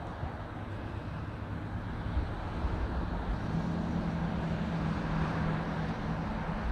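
Road traffic noise with a steady low rumble, and a vehicle engine hum coming in about halfway through and holding for a few seconds.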